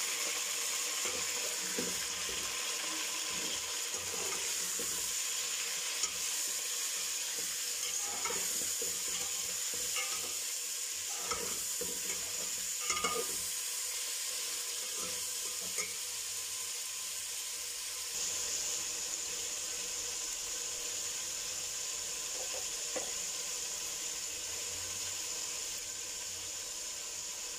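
Chicken pieces sizzling in hot oil with browned onion in a metal degchi, a steady frying hiss, with now and then the scrape and clink of a metal skimmer spoon stirring them against the pot.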